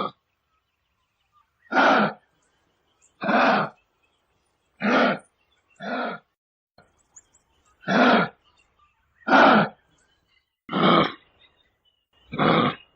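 Giraffe giving a series of short calls, about eight in a row, each a fraction of a second long with a gap of a second or so between them.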